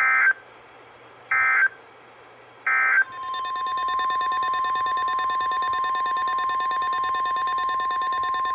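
Three short bursts of Emergency Alert System SAME digital data tones, the end-of-message signal closing a weather warning. About three seconds in, a steady single-pitched NOAA Weather Radio 1050 Hz warning alarm tone starts and holds.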